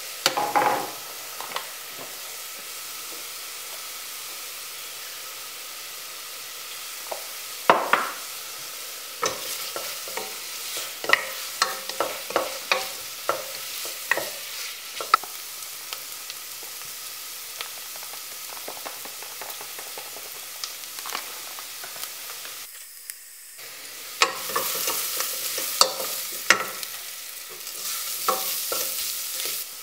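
Chopped onions frying in a stainless steel pot with a steady sizzle, while a spoon stirs them and knocks and scrapes against the pot many times. The sizzle drops out briefly about three-quarters of the way through and comes back louder.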